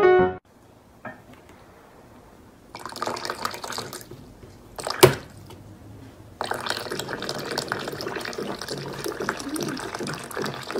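Water running from a water dispenser's tap as a cat paws its lever, with a sharp click about five seconds in.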